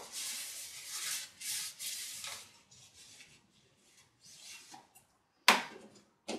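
Cloth rubbing over plant-pot saucers to wipe them dry, a run of quick wiping strokes that grow fainter after a couple of seconds. Near the end there are two sharp knocks, the first the loudest thing heard.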